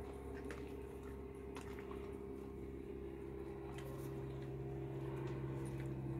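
Steady low machine hum made of several even tones, with a deeper tone coming in about halfway through, and a few faint scattered clicks.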